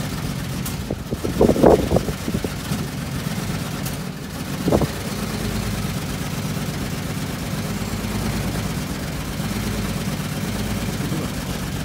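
An engine idling steadily with a low even hum, broken by a short burst of clatter about one and a half seconds in and a brief knock just before five seconds.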